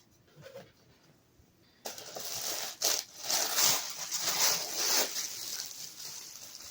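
Packing material in an opened subscription box rustling and crinkling as it is pulled aside by hand. It starts suddenly about two seconds in, is loudest over the next three seconds, and eases off near the end.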